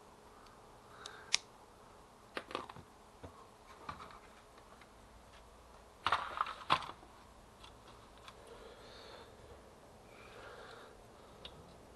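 Scattered small plastic clicks and knocks as printer paper-feed roller parts and the plastic paper cassette are handled, with the loudest clatter of knocks about six seconds in and soft rustling of parts between.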